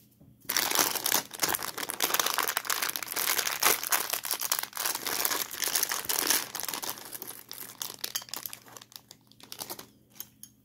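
Thin clear plastic polybag crinkling as it is handled and opened. A dense crackle starts about half a second in and thins out to scattered crackles near the end.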